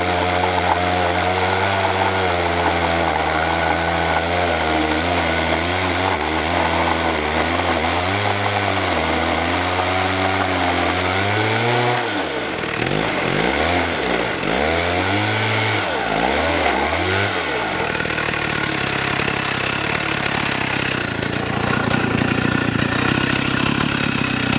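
Two-stroke chainsaw mounted in a homemade chainsaw mill, running continuously while ripping a log lengthwise into a board. Its engine note wavers under the load, rises and falls several times about halfway through, then runs steady again.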